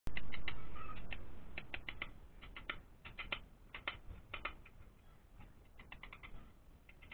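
Quick, irregular light taps, some in rapid clusters, as an oil seal is driven into the timing side of an old Royal Enfield Bullet's aluminium crankcase with a rod, starting with a sharper knock.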